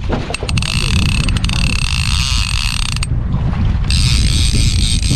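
Trolling reel's drag paying out line with a steady high whirring buzz as a hooked fish runs, taking line off the spool. The buzz breaks off for about a second near the middle, then starts again.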